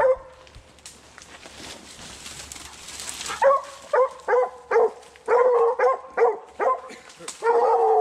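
Young Redbone coonhounds barking treed: a quick run of short chop barks starting about three and a half seconds in, the hounds' sign that they have a raccoon up the tree. Before the barking, a rustling noise.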